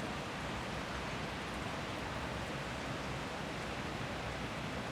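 Steady city ambience: an even, unbroken wash of background noise with no single sound standing out.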